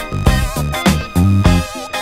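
Background music with a steady beat: a bass line under regular drum hits.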